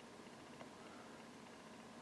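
Near silence: faint room tone, with one tiny click about half a second in.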